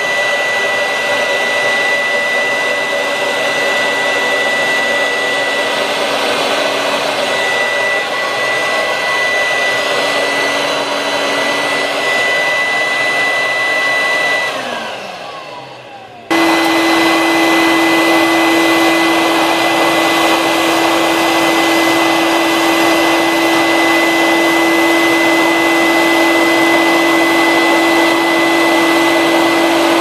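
Vacuum cleaner running through a Miele Electro Comfort power nozzle, a steady motor sound with a high whine. About halfway through it is switched off and winds down, its pitch falling. Then there is an abrupt cut to a vacuum running again, this time with a lower steady hum.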